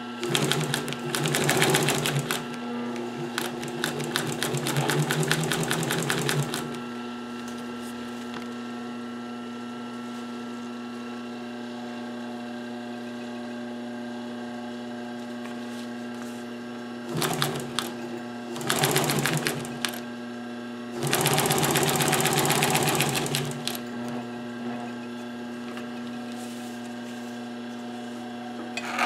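Pfaff 1245 industrial walking-foot sewing machine stitching through layered upholstery material in runs of fast, even needle strokes. There are two runs in the first six seconds or so, three shorter runs between about 17 and 24 seconds in, and a brief one at the end. A steady hum carries on between the runs.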